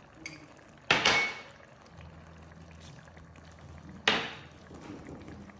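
Two sharp metallic knocks, about three seconds apart, each ringing briefly, as a utensil or bowl strikes the aluminium cooking pot while coriander and garam masala are added.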